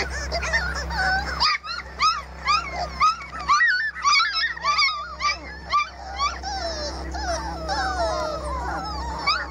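A litter of four-week-old Labrador retriever puppies whining and yelping, many short high-pitched cries overlapping. Near the end they turn to longer whines that fall in pitch.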